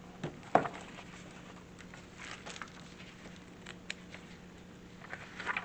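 Paper handling noises from a picture book: a few soft taps and rustles as pages are turned, the sharpest knock about half a second in and a flurry of rustling near the end.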